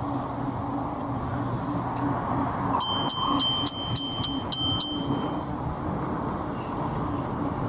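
Bicycle bell rung eight times in quick succession, about four dings a second, over the steady noise of traffic on the road alongside.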